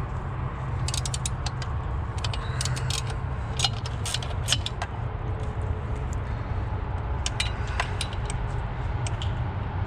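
Scattered light metallic clicks and clinks of hand tools and engine parts being handled, thickest in the first half and again a few seconds before the end, over a steady low rumble.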